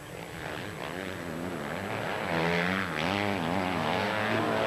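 Motocross bike engines racing, their pitch rising and falling as the riders open and close the throttle through the corners. Several bikes are heard at once, getting louder about halfway through.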